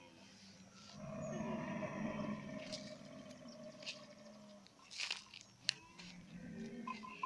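Dromedary camels browsing on scrub, with crunching and sharp snaps as twigs and leaves are bitten and chewed. A low, drawn-out animal call starts about a second in and lasts several seconds.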